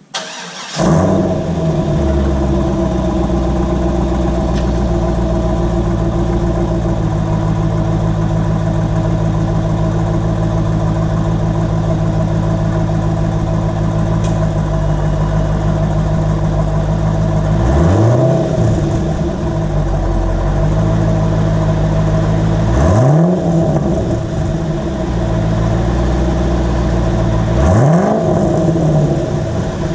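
2004 Corvette Z06's LS6 V8 through a Borla S-Type II axle-back exhaust starting up with a quick flare in revs, then idling steadily. Near the end it is blipped three times, about five seconds apart, each a quick rise and fall in revs.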